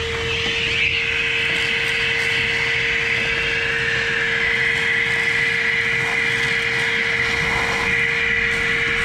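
Household vacuum cleaner running steadily, sucking debris out of an engine's open intake valley: a constant whine with a hissing rush of air.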